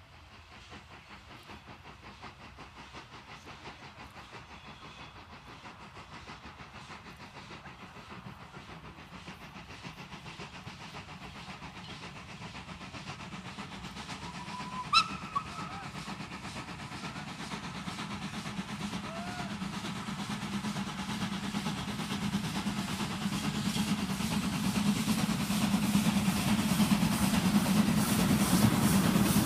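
SNCF 140 C 314, a 2-8-0 steam locomotive, working hard at the head of a passenger train, its exhaust beating in a steady rhythm that grows much louder as it approaches and draws close. A brief high-pitched sound comes about halfway through.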